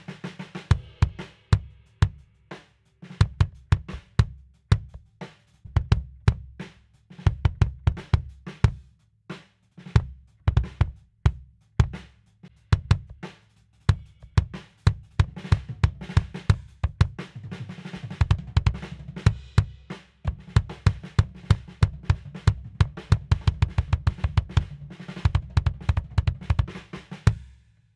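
Kick drum played with a bass drum pedal and beater, close-miked: an irregular run of strokes, some in quick doubles, with short breaks about two to three seconds in and around twenty seconds in.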